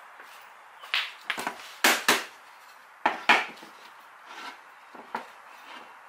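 A small plywood block and hand tools being handled and set down on a benchtop: an irregular series of sharp wooden knocks and clatters, the loudest around two and three seconds in.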